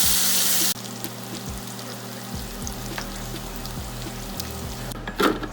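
Seasoned chicken frying in hot oil, a loud sizzle that cuts off abruptly under a second in, leaving faint crackles over a low hum. Two loud knocks come near the end.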